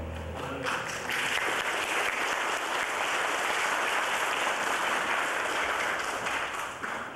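Audience applauding, starting about half a second in as the last held chord of a song with acoustic guitar dies away, and tailing off near the end.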